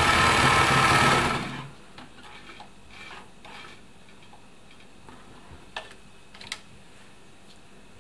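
1972 Elna Supermatic SU 62C sewing machine running at speed, stitching a narrow zigzag, then stopping about a second and a half in. A few faint clicks follow.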